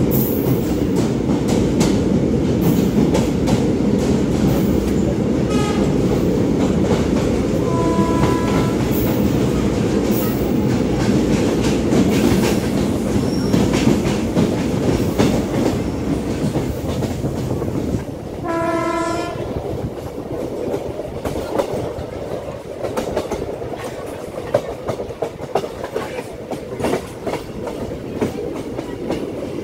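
Passenger train running through a tunnel, heard from an open coach door: a loud, dense rumble of wheels and carriages. The locomotive horn sounds briefly about a quarter of the way in and again, longer, a little past halfway. The rumble then drops in level as the train comes out of the tunnel, with wheel clicks over the rail joints.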